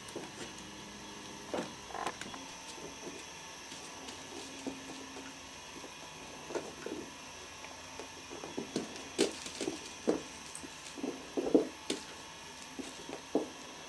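Kittens at play: light, irregular knocks, taps and scuffles as they paw at and bump cardboard and carpeted toys, coming faster and louder in the second half.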